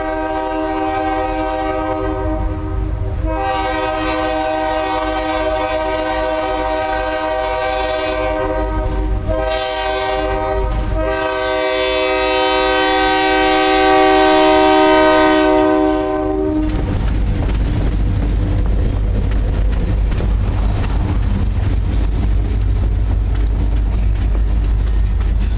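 Diesel freight locomotive's multi-chime air horn blowing in long, long, short, long blasts, the grade-crossing signal, as the GE C40-8 locomotive approaches and passes, loudest as it goes by. The horn stops about 16 seconds in. After that the freight cars roll past with a steady low rumble and clickety-clack of wheels on rail joints.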